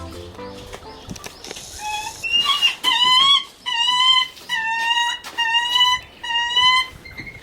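Lanner falcon calling: a run of about six drawn-out, harsh, slightly rising calls, each about half a second long, repeated at an even pace. They are the calls it makes to get its keeper's attention. Background music fades out near the start.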